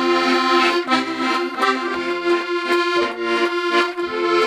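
Piano accordion playing a hymn tune: a melody moving over held chords.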